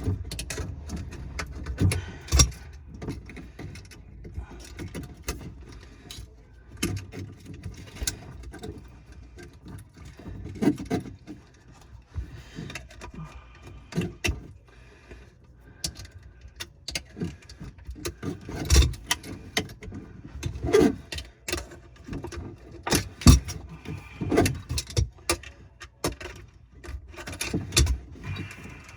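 Irregular clicks, taps and knocks of hand tools and plumbing parts being handled during disposal and drain work, with a few sharper knocks standing out.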